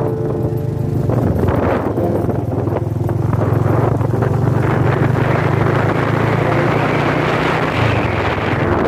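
Motorcycle engine running steadily while riding, with wind buffeting the microphone.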